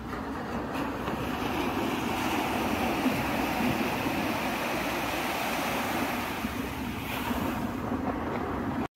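Sea surf washing onto a beach with wind buffeting the microphone, a steady rush that swells and eases, then cuts off suddenly near the end.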